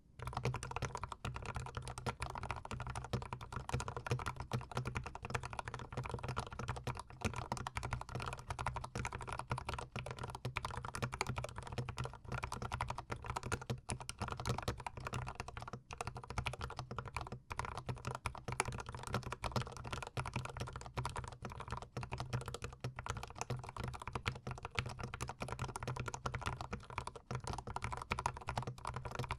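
Continuous fast typing on a GMMK Pro mechanical keyboard fitted with Zeal Tealios linear switches, a dense unbroken run of keystrokes close to the keys.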